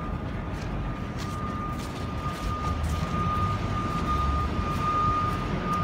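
A heavy engine running on a city street, slowly growing louder: a low rumble with a steady high whine over it.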